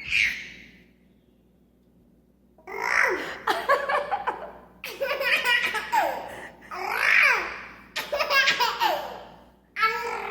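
Baby laughing: a short laugh at the start, then after a pause about five bouts of high-pitched belly laughter, many of them sliding down in pitch.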